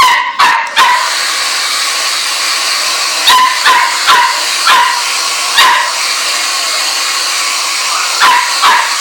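A small dog, likely a chihuahua, yipping and barking about ten times in short clusters of two or three. Under the barks a steady blower runs, starting about a second in.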